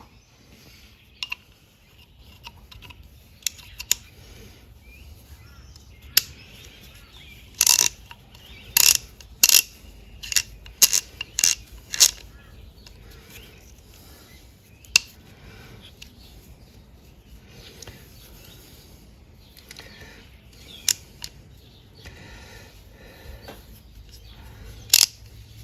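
A few short blasts of compressed air from an air blow gun, about eight to ten seconds in, cleaning grit out of a ratchet's parts. Light metallic clicks and clinks of the small ratchet parts being handled run throughout.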